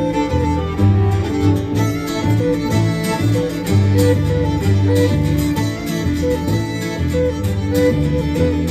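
Live Irish traditional tune on fiddle, with strummed acoustic guitar and plucked upright double bass keeping a steady driving beat.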